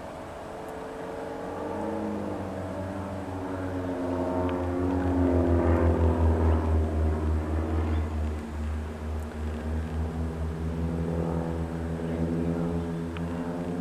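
Engine drone of a pair of small aerobatic propeller planes flying overhead, with a pulsing low hum. It grows louder to a peak about halfway through, then eases off, its pitch sliding slowly as the planes pass.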